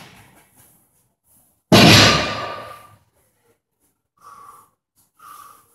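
A loaded 120 kg barbell set down on the gym floor at the end of a deadlift rep: one loud clank of the plates about two seconds in, ringing and dying away over about a second.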